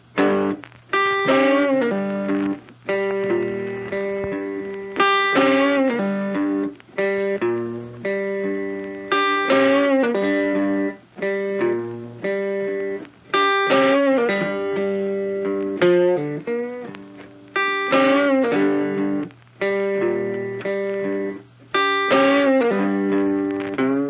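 Background music: a guitar picking notes that ring and die away, in phrases that repeat about every four seconds.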